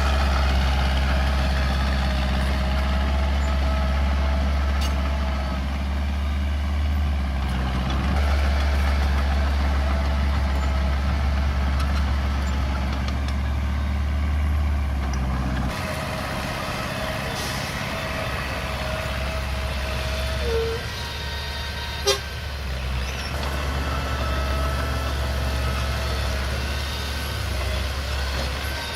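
Mini Komatsu bulldozer's diesel engine running steadily under work, with a strong deep hum that drops away partway through. A single sharp click comes near the end.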